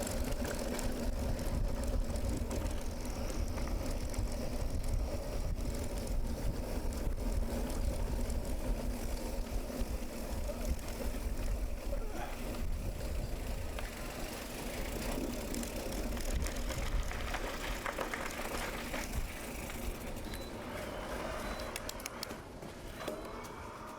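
Riding a bicycle: steady rumble of wind on the microphone and tyre noise, with a steady hum under it and scattered clicks.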